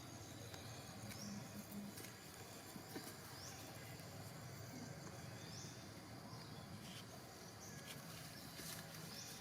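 Faint jungle ambience: insects keep up a steady high drone while a short rising chirp repeats about every two seconds, with a few soft clicks and rustles.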